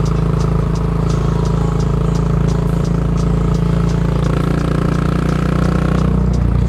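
Yamaha SR400's air-cooled single-cylinder four-stroke engine running through a Goods tapered-cone slip-on muffler while the bike cruises. The engine note changes a little after four seconds and again near the end.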